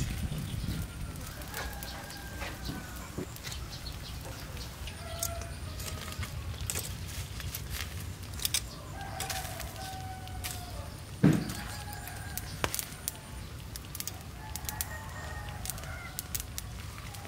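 Roosters crowing several times, with drawn-out arching calls spaced a few seconds apart. Scattered sharp clicks and one dull thump about eleven seconds in.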